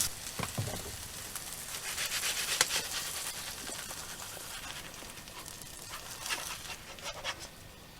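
Salmon and vegetables frying in a skillet, a faint sizzle that slowly dies away, with a few clicks and scrapes of a utensil against the pan.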